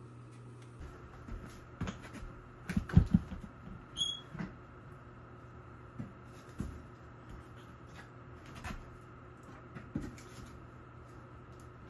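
Knocks and clatter of a wood stove being loaded and handled, loudest about three seconds in, with a short squeak near four seconds, then scattered single clicks as the fire is lit with a long lighter.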